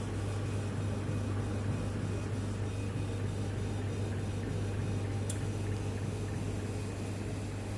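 Kamach 6090 CO2 laser engraving machine running: a steady low mains-frequency hum with an even fan-like hiss, and a single short click about five seconds in.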